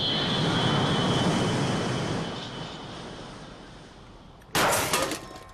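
Cartoon jet-engine rushing sound effect that fades away over a few seconds, followed by a brief, sudden swoosh about four and a half seconds in.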